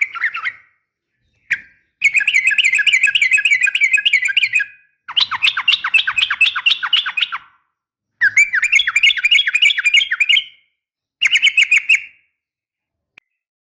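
Yellow-vented bulbul (trucukan) calling: a brief note, then four long phrases of fast, chattering repeated notes with short pauses between them, falling silent near the end. This is lure audio that the uploader presents as a female calling for a male.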